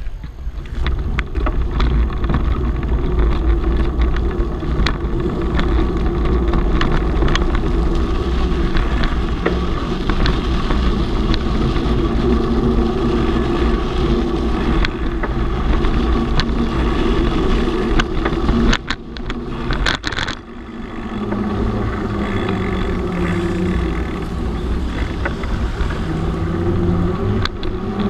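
Wind buffeting the microphone of a handlebar-mounted camera over the rumble and clatter of a knobby fat-tyre bicycle being ridden over concrete and sand, with a faint tyre hum that rises and falls with speed on the asphalt later on. The noise drops briefly a little over two-thirds through.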